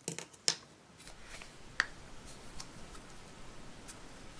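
A few light clicks and taps of a plastic Play-Doh can and its lid being handled and opened, the sharpest near the start, about half a second in and just under two seconds in, then only faint handling noise as the soft dough is worked.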